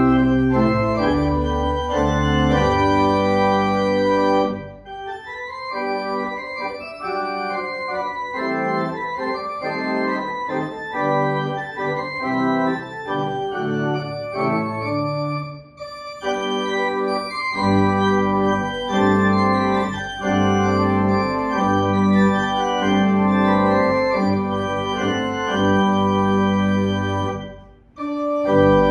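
Pipe organ playing a slow piece in sustained chords. The deep pedal bass drops out about four and a half seconds in and comes back at about seventeen seconds, and the music breaks off briefly near the end before going on.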